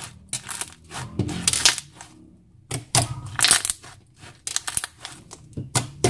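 Clear slime made from mixed clear glues being squeezed, stretched and poked by hand. It gives irregular sticky clicks and crackles in short clusters.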